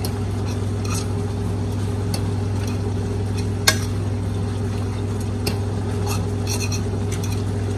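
Crumbled meat sizzling in a frying pan as a utensil stirs and scrapes through it, with scattered clicks of the utensil against the pan and one sharper click about halfway through. A steady low hum runs underneath.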